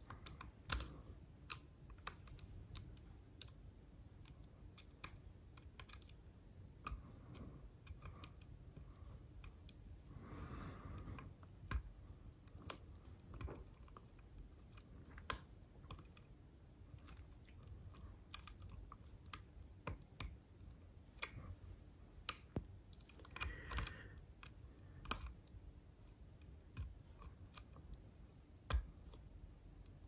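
Irregular light clicks and ticks of a lock pick working the pin stack of an Assa Ruko lock cylinder under tension, with an occasional sharper click. Twice a brief soft rustle.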